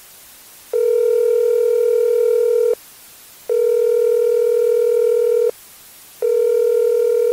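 Synthesized telephone ringing tone: a steady mid-pitched beep about two seconds long, sounded three times with short gaps, the third still going at the end. It is the held call being put through to a representative.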